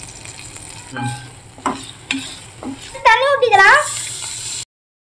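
Wooden spatula stirring and scraping frying vegetables in an aluminium kadai, with a few short clicks and a light sizzle. A brief high wavering sound comes about three seconds in, then a rush of sizzling as water is poured into the hot pan, and the sound cuts off abruptly.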